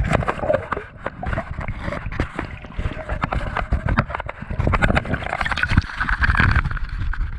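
Water splashing and gurgling around a camera at the water's surface, with many quick knocks and rubbing as the camera bumps against the diver's gear.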